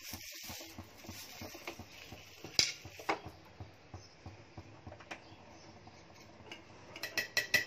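Faint sizzle from a hot nonstick pan, with a few light knocks of a wooden spatula and a plate, and a quick run of clicks near the end.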